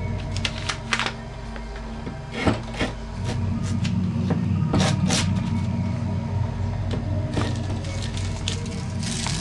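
A low, steady droning hum with scattered sharp clicks and knocks on top, the loudest about two and a half seconds in and another pair around five seconds in.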